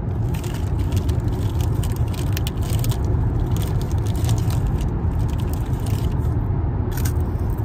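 Steady low rumble inside a moving car, with dense crackling and crunching close to the microphone from a plastic biscuit packet being handled and biscuits being eaten. The crackling thins out and stops near the end.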